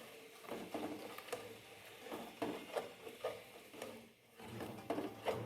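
Spoon stirring the cream gravy in a cooking pot: a run of soft scrapes and light knocks of the spoon against the pot.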